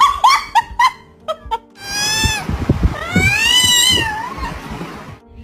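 A cat meowing: about half a dozen short, quick meows in the first second and a half, then two long drawn-out yowls, the second rising and then falling in pitch.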